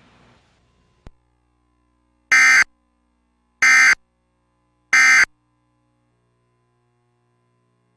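Emergency Alert System end-of-message signal: three identical loud bursts of buzzing SAME data tone, each about a third of a second long and about 1.3 s apart, marking the close of the alert test. A faint click comes about a second in.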